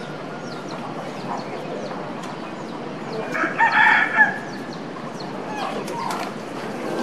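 A rooster crows once, loudly, about three seconds in, with a weaker call near the end. Many short, high chirps run throughout.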